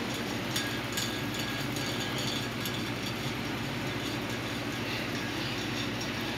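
Hampton Bay ceiling fan running steadily with a low motor hum, plus the slight bearing noise and vibration the owner says it has.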